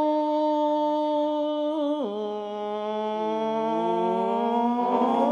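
A long held musical note that steps down in pitch about two seconds in, then a second tone glides slowly upward beneath a steady lower one toward the end.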